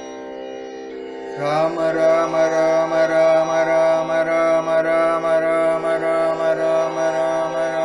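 Harmonium holding a steady drone chord; about a second and a half in, a voice enters with a rising glide and sings a long, wavering, ornamented line over it in raga Kapi.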